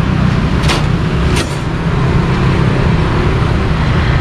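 Street traffic noise: a steady low rumble of vehicle engines, with two short hisses about a second in.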